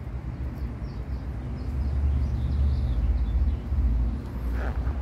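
Outdoor ambience: a steady low rumble that swells about two seconds in, with faint, short high chirps of small birds in the first half.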